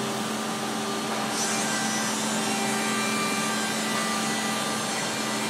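Balestrini CNC router's spindle milling a curved wooden furniture part: a steady machining noise over a constant hum, with a brighter hiss joining about a second in as the cutter works the wood.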